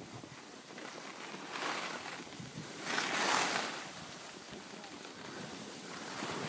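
Skis sliding and scraping over packed snow, a steady hiss that swells twice, about one and a half and three seconds in.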